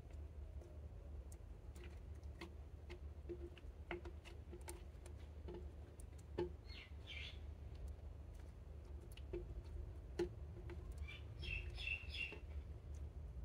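Clear slime mixed with glitter makeup being stretched, folded and squeezed by hand: a run of small sticky clicks and pops, with two brief bursts of high chirping squeaks.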